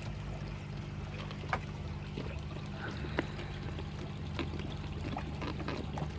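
Pond water pouring and trickling steadily, over a steady low hum, with two faint clicks about a second and a half and three seconds in.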